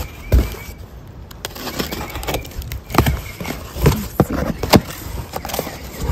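Cardboard box being cut open with a box cutter and its flaps pulled back: irregular sharp knocks, taps and scrapes of cardboard and the blade.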